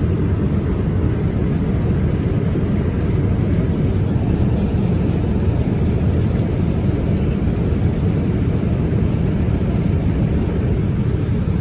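Steady drone of an airliner cabin in flight: engine and airflow noise heard from inside the cabin.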